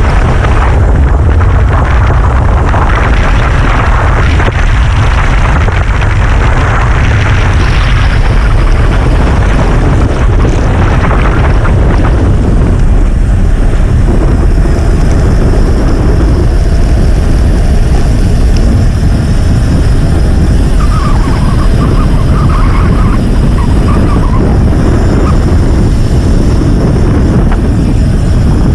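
Wind buffeting the microphone of a bike-mounted action camera as the road bike rolls along at speed: a loud, steady, deep rumble with a hiss above it.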